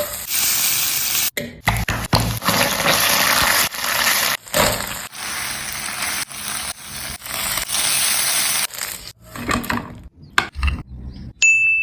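Hot oil sizzling and crackling in a nonstick pan, first with spices frying and then as a spatula scrapes and tosses fried dough balls in masala, heard in short chunks that cut off abruptly. A few sharp knocks come near the end, then a brief high tone right at the end.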